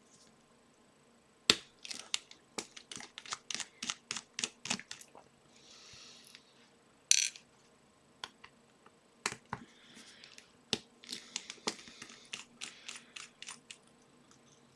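Small metal clicks, ticks and scrapes of a five-pin padlock being taken apart by hand to get its tailpiece off: two runs of quick clicks with a short rasp between them.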